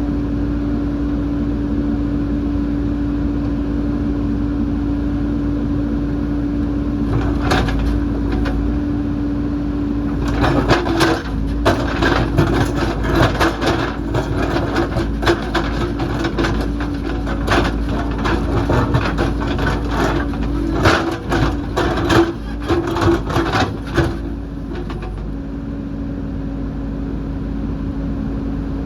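JCB backhoe loader's diesel engine running steadily. From about ten seconds in until about twenty-four seconds, a long run of sharp knocks and clatter from the bucket working rock and earth.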